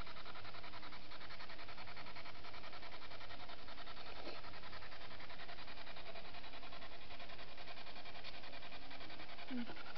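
Spirit box sweeping through radio stations: a steady stream of fast-pulsing radio static, with a brief voice-like fragment near the end that the listeners take for a spirit's reply.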